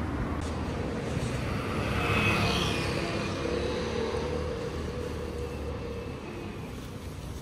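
A vehicle passing on a city street at night, over a steady traffic rumble. It grows loudest about two seconds in, with a thin whine, then slowly fades away.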